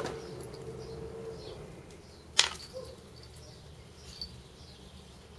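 Faint, scattered bird chirps over a quiet outdoor background, with one sharp click about two and a half seconds in.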